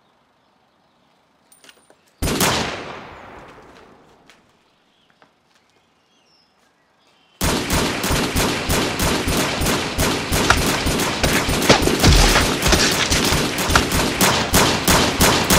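Handgun gunfire. One shot about two seconds in rings out and fades over about two seconds. From about seven seconds in comes a continuous rapid volley of shots, several a second.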